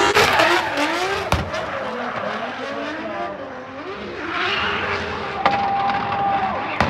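Drift cars sliding: engines revving up and down with tyres squealing, and a steady high squeal near the end.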